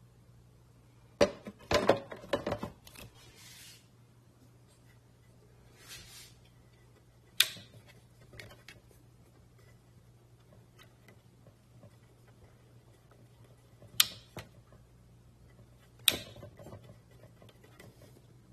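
A burst of clattering about a second in, then three separate sharp clicks, over a faint steady low hum.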